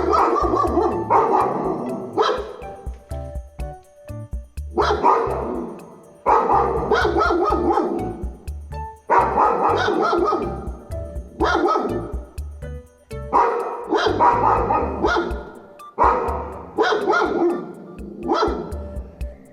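Dogs, a Labrador and a German Shepherd, barking loudly in clusters of two or three barks every couple of seconds. Background music with a low beat plays under the barks.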